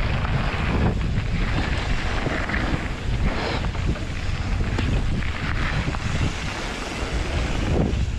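Wind buffeting a helmet- or bar-mounted camera's microphone over the rumble and rattle of a mountain bike rolling down a dry dirt trail, with a few brief louder scrapes of the tyres.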